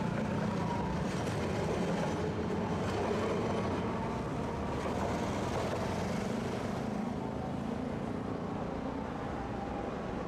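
Tosaden streetcar running along its street tracks: a steady rumble of wheels on rail with a low hum.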